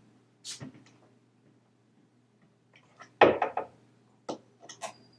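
A few light clicks and knocks of a hand screwdriver and screws working on a clear acrylic wall piece, as a mounting screw is set into a plastic wall anchor. The loudest knocks come a little after three seconds in, with more small clicks near the end.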